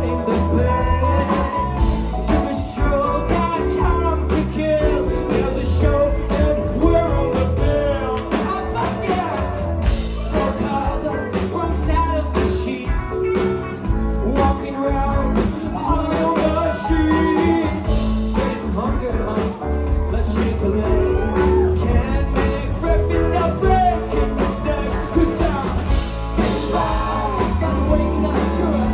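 Live rock band playing: drums keeping a steady beat under bass and electric and acoustic guitars, with a singing voice.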